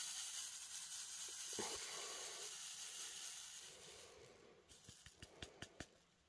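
Resin diamond-painting drills swishing and rattling across a ridged plastic sorting tray as it is shaken, so they settle into rows. The steady hiss fades out about four seconds in and gives way to a quick run of sharp clicks.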